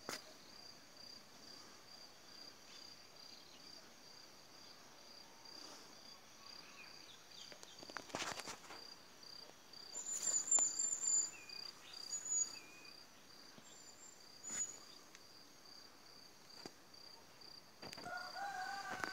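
An insect chirps steadily all through, a high pulsed note about three times a second. A few brief high bird chirps come around the middle, and a short lower call near the end.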